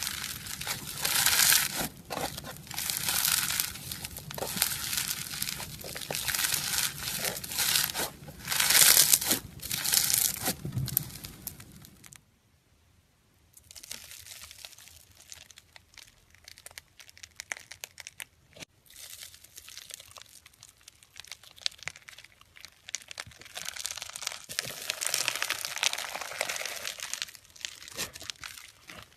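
Foam-bead slime (floam) being squeezed, stretched and pressed by hand, giving dense crackling of many small clicks. The crackling cuts out about twelve seconds in, then comes back quieter and sparser and swells again near the end.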